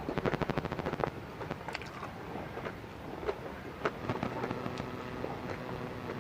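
Rubber tree seeds being crunched and chewed close to the microphone: a quick run of crackles in the first second, then scattered single crunches.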